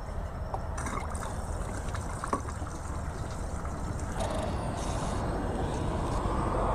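Petrol trickling from a small gas can into a Kawasaki motorcycle's empty fuel tank, refuelling a tank that had run dry. Under it runs a steady low rumble that grows a little louder toward the end.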